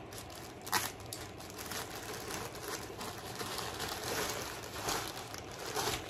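Plastic packaging crinkling and rustling as a poly mailer bag and a clear plastic bag are handled and opened by hand, with a sharper crackle just under a second in.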